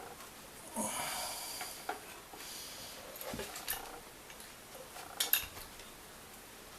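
Small hard objects being handled and set down: a rustling, scraping clatter about a second in, then a few separate sharp clicks and knocks.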